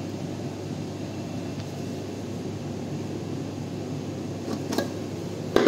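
Steady low room hum, with a couple of light clicks near the end and a louder short knock just before it ends.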